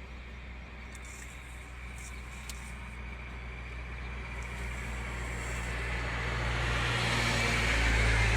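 A heavy engine running with a steady low hum that grows louder over the second half.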